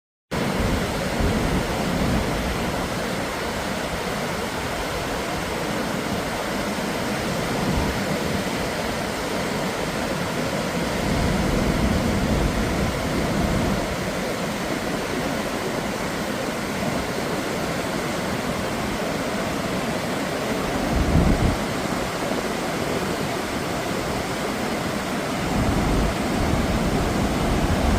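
Waterfall roaring as a steady, dense rush of falling water, with wind buffeting the microphone in low thumps about two-thirds of the way through and again near the end.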